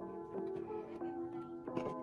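Background music: a light melody of short plucked or struck notes. A brief rustle of the cardboard box being handled comes near the end.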